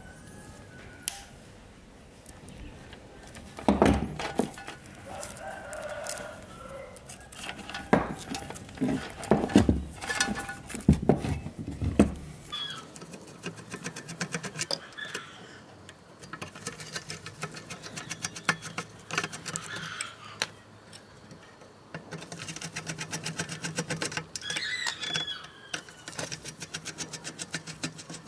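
Hand tools on an old electric fan's wiring and switch parts: clicks and knocks of side cutters handling wires, loudest in the first half, then fine fast scratching and ticking as a screwdriver works on the terminals. A rooster crows in the background.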